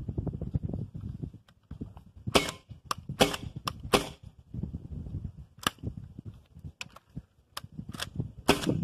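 .22 LR Dragunov-lookalike rifle with a straight blowback action, firing a string of sharp cracks at uneven spacing. Some shots come close together and others follow short pauses, with fainter clicks in between.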